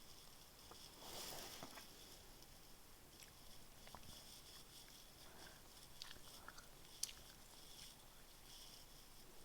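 Faint chewing of a chewy extreme-sour apple sweet: quiet wet mouth clicks and smacks, with one sharper click about seven seconds in.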